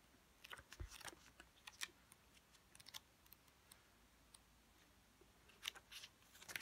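Near silence with faint, scattered soft clicks and paper rustles of pages being leafed through in a small guidebook.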